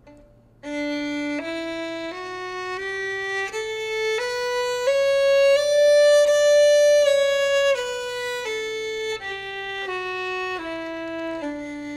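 Holstein Traditional Panette violin playing a one-octave D major scale, one bowed note at a time. It climbs evenly in steps from open D to the D an octave above, holds the top D for a few seconds, then steps back down to D.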